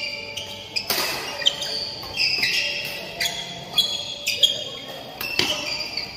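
Badminton rally: rackets striking the shuttlecock in sharp cracks, the loudest about a second in and again near the end, with court shoes squeaking on the court floor between hits, in the echo of a large hall.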